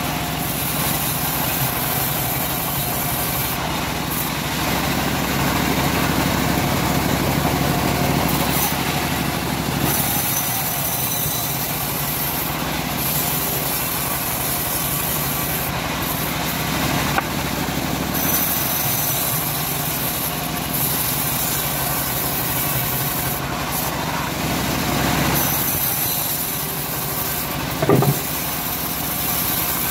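Home-built bandsaw mill running steadily as its blade saws lengthwise through a short teak log, the hiss of the cut swelling and dropping as the log is pushed through. There is a brief knock near the end.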